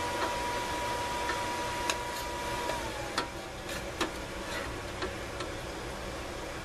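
Small fan-blown forge running with a steady rushing noise and a thin whine that drops in pitch a little under three seconds in, with scattered sharp ticks and clicks over it.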